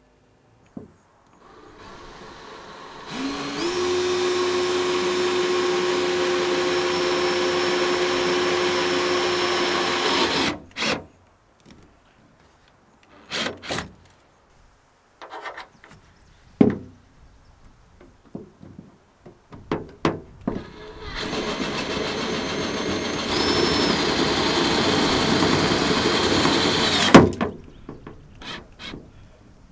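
Bosch cordless drill with a step bit boring through the boat's aluminum hull, run twice for several seconds at a steady speed, with clicks and knocks between the runs. The second run ends in a sharp knock.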